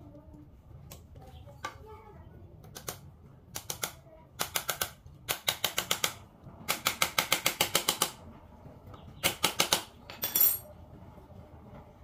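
Small hammer tapping a nail into a wooden bird cage frame, in quick runs of light, sharp taps at several a second, the longest runs in the middle.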